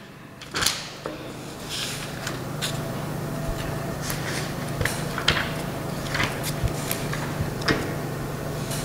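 Quiet pause filled by a steady low hum, with scattered soft clicks and rustles of handling close to a handheld microphone.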